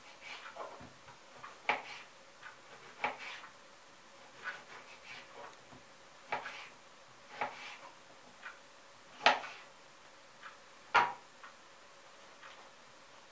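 Kitchen knife slicing a tomato on a wooden cutting board: short knocks of the blade against the board, roughly one a second, with two louder knocks near the end.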